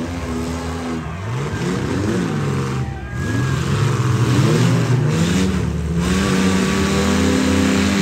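Demolition derby SUVs and trucks revving their engines hard, several engines at once, the pitch climbing and dropping again and again as they drive and ram on a dirt track.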